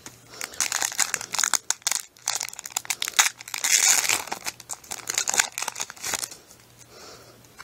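A foil trading-card booster pack wrapper crinkling and crackling as hands work it open. The sound is loudest about four seconds in and dies away about a second before the end.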